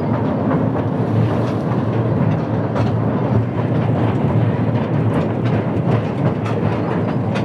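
Small open-sided joy train running along its track, heard from on board: a steady rumble of wheels on the rails with scattered clicks.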